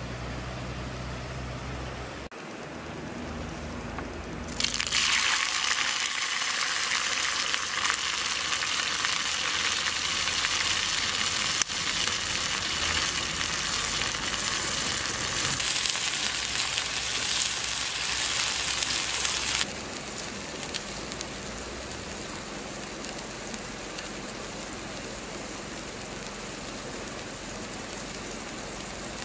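Hot oil in a pan over a wood fire sizzling: it jumps to a loud sizzle about four and a half seconds in, as grubs fry in it, then settles to a softer steady sizzle for the last third.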